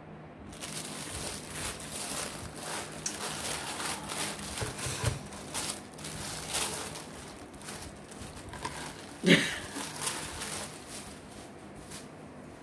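Tissue paper rustling and crinkling as a gift is unwrapped by hand, with a brief sound of a woman's voice about nine seconds in.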